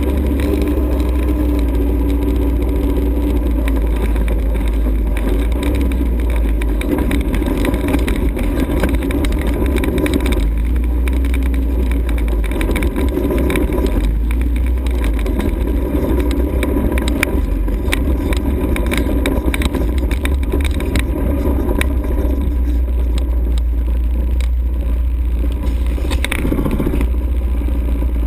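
ATV engine running steadily under way, with frequent short knocks and rattles over the middle of the stretch.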